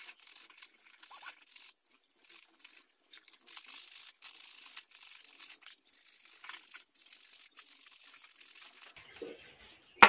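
Faint rasping of a flat metal hand grater as a vegetable, shown to be carrot, is rubbed across it in short repeated strokes.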